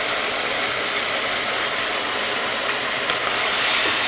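Moong dal and spice paste sizzling in hot oil in a non-stick wok, a steady frying hiss. It gets a little louder near the end as a wooden spatula starts stirring the lentils in.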